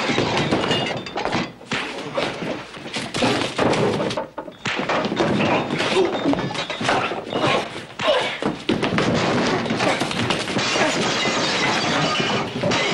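Saloon fistfight: a dense, unbroken run of punches, thuds and crashing furniture, with things breaking and shattering.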